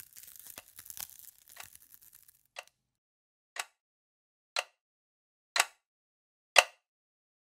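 Synthetic sound effects: a sparkly, crackling hiss for about two seconds, then five sharp hits spaced a second apart, each louder than the last.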